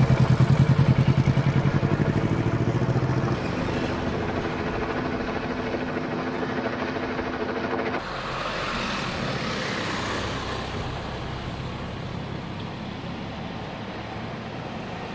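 Helicopter overhead with a fast, pulsing rotor chop that is loudest at first and then eases off. About eight seconds in, the sound cuts to a steadier engine and traffic-like noise.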